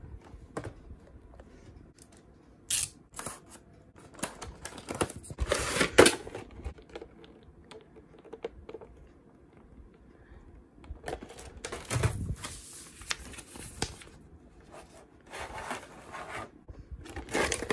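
Cardboard toy box and clear plastic blister tray being handled and unpacked: irregular rustling, crinkling and light taps of plastic, with louder handling about five seconds in, again around twelve seconds and near the end.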